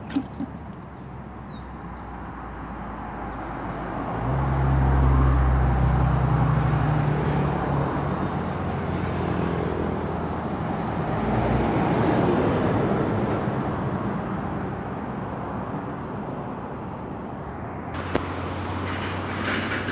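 Highway traffic passing close by: a heavy vehicle's deep engine drone swells past a few seconds in, and another vehicle passes about twelve seconds in, over a steady rush of tyre noise. A couple of sharp clicks come near the start and near the end.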